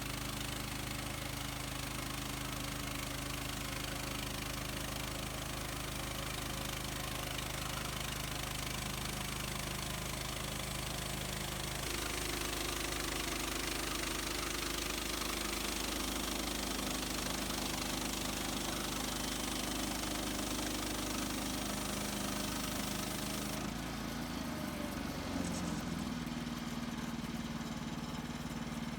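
The gas engine of an HM130 Max portable bandsaw mill running steadily while milling a spruce log. Its note shifts about twelve seconds in, and again near twenty-four seconds.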